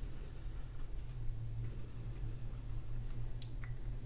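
Sharpie felt-tip marker scratching rapidly on a paper card as small circles are coloured in, in two spells of quick back-and-forth strokes, followed by a single click near the end.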